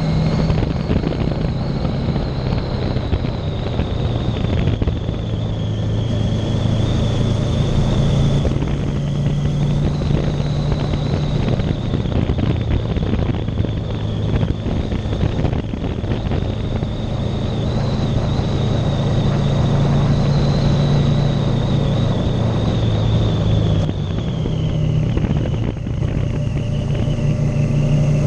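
Motorcycle engine running at a steady cruise under a rush of wind noise, the engine note drifting slightly up and down with speed and easing briefly near the end.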